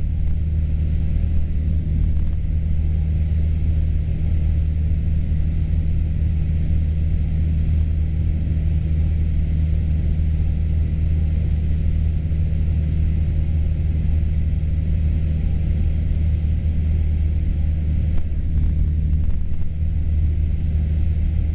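Piper PA-38 Tomahawk's four-cylinder Lycoming O-235 engine and propeller running in flight, a steady low drone.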